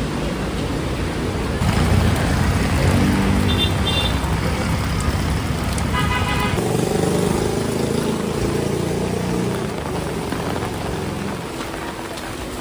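City road traffic over a steady hiss, with a vehicle engine running close by through the middle. A horn toots briefly about three and a half seconds in and again at about six seconds.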